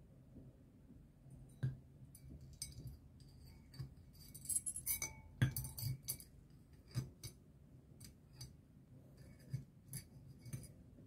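A metal screwdriver shaft and a wire hook clinking and tapping against the rim of a glass beaker: a scattered series of light clinks, with a quick cluster in the middle.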